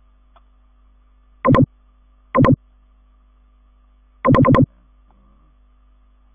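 Three short, loud, buzzy electronic bursts: one about a second and a half in, another about a second later, and a rapid stutter of about four pulses near the end. A faint steady hum lies underneath.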